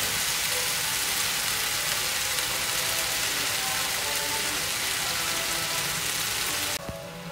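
Chicken and spaghetti sizzling in a frying pan, a steady hiss as the boiled noodles are added and tossed. The sizzle cuts off suddenly near the end, leaving faint background music.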